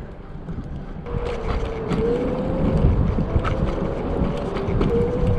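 A motor running steadily: a constant hum over a low rumble that comes in about a second in, with a few light clicks.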